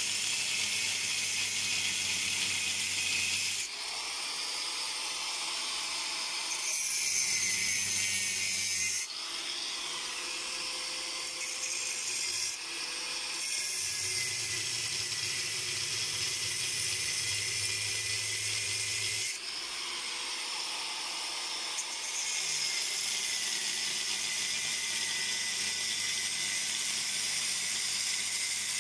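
Handheld angle grinder grinding a steel seat frame, throwing sparks. The sound shifts every few seconds as the disc works against the metal.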